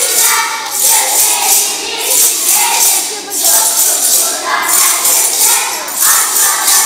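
Music with jingling, shaken percussion over a wavering melody, the jingles swelling and breaking about every second or so.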